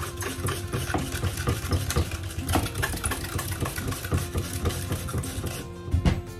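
Red cabbage being shaved on a handheld plastic slicer: rapid, steady back-and-forth rasping strokes as the blade cuts thin shreds. The strokes stop shortly before the end, followed by a couple of louder knocks.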